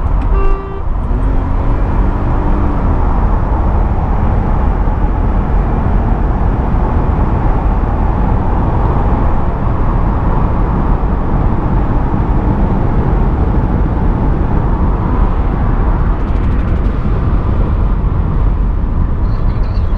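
Car driving at speed: loud, steady road, wind and engine noise, with a faint engine note rising and then falling in the first few seconds.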